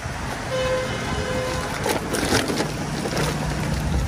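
Outdoor wind noise on the microphone over a steady low hum, with a few short crackles about two seconds in.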